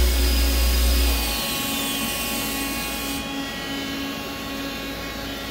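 Hardinge GT27SP CNC lathe spindle spinning down from about 4,400 RPM, its whine falling in pitch. A deep hum drops out about a second and a half in, and the high hiss cuts off about three seconds in, leaving a steady machine hum.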